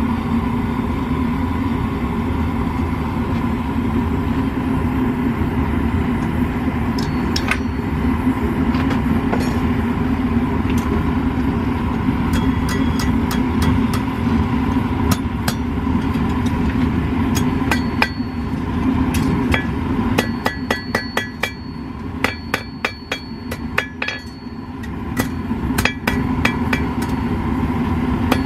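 Hand hammer striking hot steel on an anvil, each blow ringing briefly. The blows are scattered at first, then come in quick runs of light taps in the second half. Under them runs the steady roar of a propane gas forge burner.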